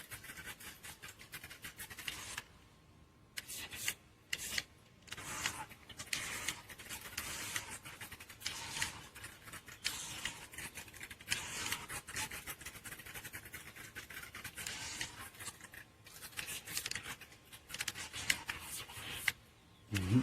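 Mini RC boat running in circles on the water, its small propellers churning and splashing in uneven, crackly bursts. It stops briefly a few times.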